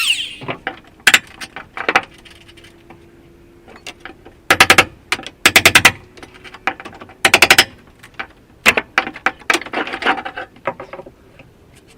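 Mechanical clicking in three short bursts of rapid, evenly spaced clicks, with scattered knocks and taps in between, from hand work with tools or door hardware.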